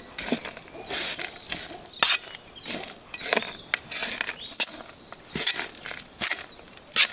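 A metal spoon stirring and scraping a crumbly mixture of chopped herbs and carrots on a metal tray, with rustling and a few sharp clinks of the spoon against the tray. Small birds chirp in the background.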